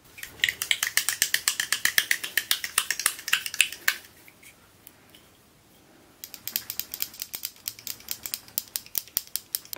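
Small glass bottle of old nail polish, freshly thinned, shaken hard so that something loose inside rattles in quick clicks, about ten a second, in two spells with a pause of about two seconds between. The loose thing is taken to be a mixing ball in the bottom of the bottle.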